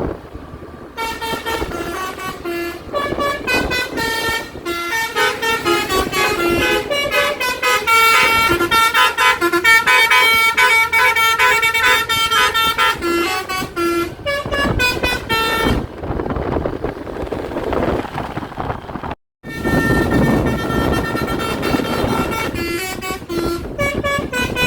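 A tour bus's 'basuri' telolet horn, a multi-trumpet air horn, plays a quick tune of short tooting notes over road and engine noise. The tune breaks off about two-thirds of the way through, the sound cuts out briefly, and the tooting starts again for the last few seconds.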